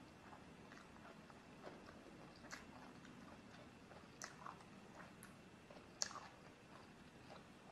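Faint eating sounds: a metal fork clicking against a plate now and then, with soft chewing. The sharpest click comes about six seconds in.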